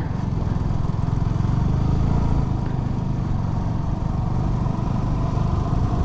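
Motorcycle running steadily while being ridden: a constant engine drone with road noise, no change in pitch or speed.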